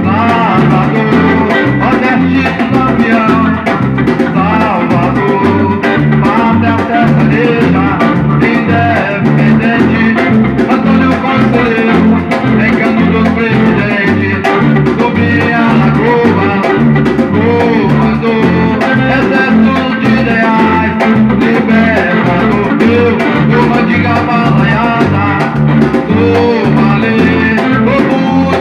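Samba-reggae music with a steady drum beat and guitar.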